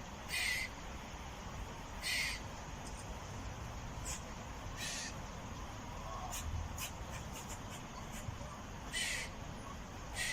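A squirrel calling: four harsh, hissy calls a few seconds apart, with several short sharp chips between them, over a steady background hiss.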